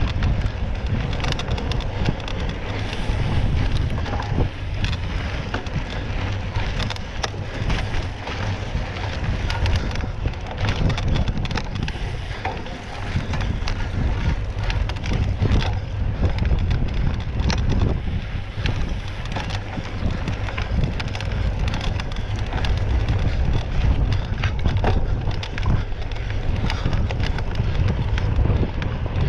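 Strong wind buffeting on the microphone of a camera carried on a mountain bike at speed, with frequent short clicks and rattles from the bike over the course.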